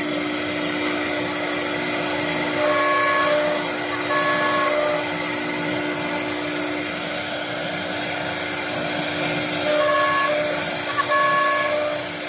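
A three-head CNC door lock and hinge machine running with a steady hiss and a low hum. A higher pitched whine rises over it four times, in short spells of under a second each.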